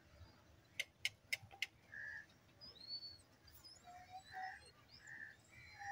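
Faint outdoor bird calls: short calls repeating every second or so, with a few higher chirps. Four sharp clicks come in quick succession about a second in.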